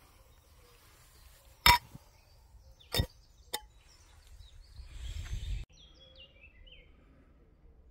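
Metal clinks from a Trangia spirit burner and its brass cap as the flame is put out: three sharp ringing clinks, the first the loudest. A rustle follows and cuts off suddenly, then a few faint short falling notes.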